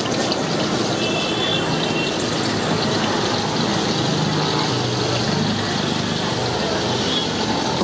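Steady roar of a high-flame gas wok burner, with food frying in the wok, running evenly without a break.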